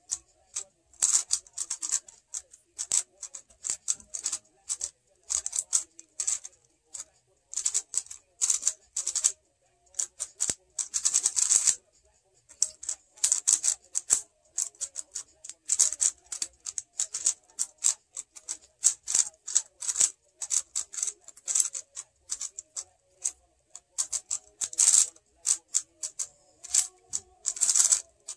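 Plastic megaminx being turned fast during a speedsolve: flurries of rapid clattering clicks as the faces snap round, broken by brief pauses between bursts of turns.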